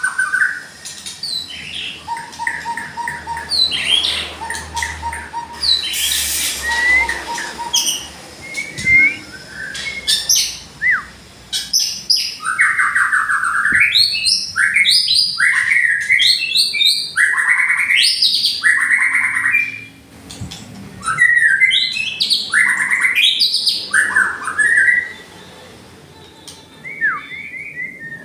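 White-rumped shama song: varied whistled notes and chirps at first, then from about twelve seconds in a dense, loud run of sweeping slurs and rapid trilled bursts (the 'tembakan' prized by shama keepers), thinning out near the end.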